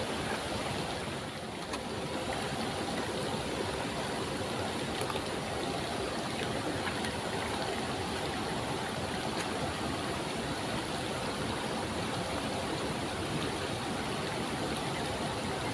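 Rushing water at a waterfall: a steady, even rush with no let-up.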